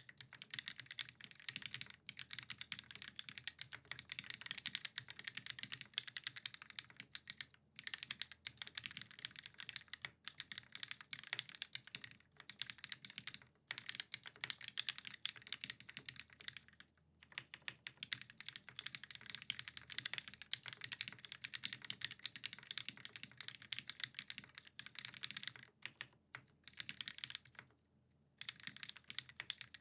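Continuous typing on a custom Sabre mechanical keyboard with an aluminium plate, lubed vintage Cherry MX Black linear switches and GMK keycaps: a dense stream of quick keystroke clacks, broken by a few brief pauses.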